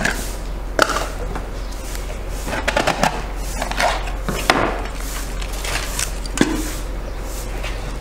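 Foil seal being torn and peeled off the mouth of a plastic jar of rice: crinkling, with several sharp clicks and knocks as the jar is handled, the crinkling bunched a few seconds in.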